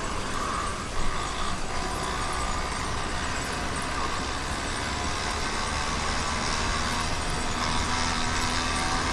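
Motorized bicycle's YD100 two-stroke engine, fitted with a windowed piston, running steadily while riding, with a brief knock about a second in.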